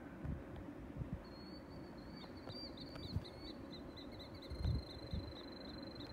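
An animal's high, thin chirping call near 4 kHz, repeating about three to four times a second, over a low rumble with several low thumps on the microphone.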